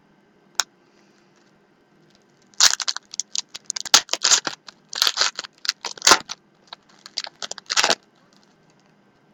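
Trading card pack wrapper being torn open and crinkled: a quick run of crackly rustles lasting about five seconds, after a single click near the start.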